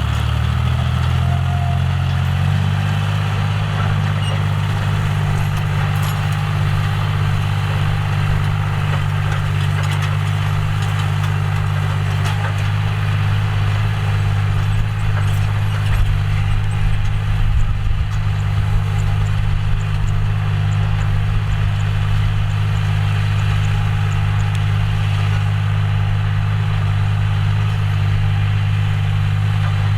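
John Deere 5045D tractor's three-cylinder diesel engine running steadily; its engine speed settles in the first two seconds, then holds an even low drone.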